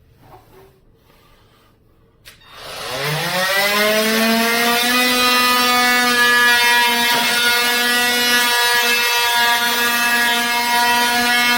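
KIMO 20V cordless oscillating multi-tool switched on with a click about two seconds in. Its motor whine rises in pitch for about two seconds as it spins up, then runs loud at a steady pitch.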